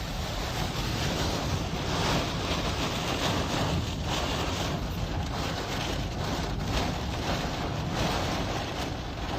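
Wind blowing across the microphone: a steady rushing noise with a heavy low rumble.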